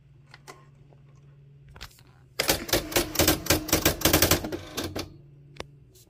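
Nakajima WPT-160 electronic typewriter's print wheel printing a line of special symbols: a rapid run of sharp strikes, about a dozen a second, lasting some two seconds and starting about halfway through. It is preceded by a few single key clicks over a low steady hum.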